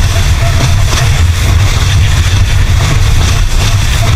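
Outboard motor of a small open speedboat running steadily under way, a loud constant drone mixed with the rush of wind and water as the boat moves.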